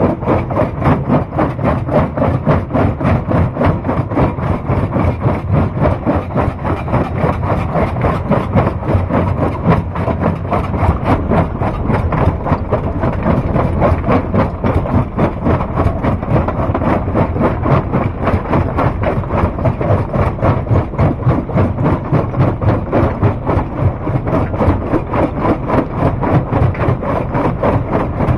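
Heavy machinery running steadily: an engine-driven drone with a fast, regular pulsing beat.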